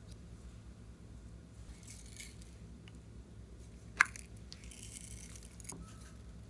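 Slime being handled and mixed, with soft squishing and short stretches of crackly hiss. One sharp click about four seconds in, the loudest sound.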